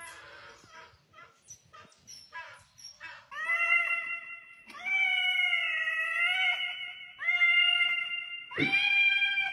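A calico cat meowing into a toy karaoke microphone held to its mouth: four long, drawn-out meows, the first about three seconds in.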